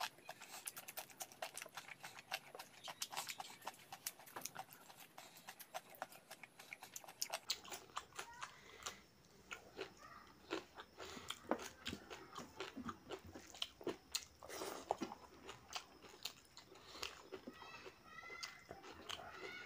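Close-up eating sounds: crisp crunching bites of raw cucumber and wet chewing of rice and mutton curry. The crunches come thick and fast for the first several seconds, then thin out into slower chewing.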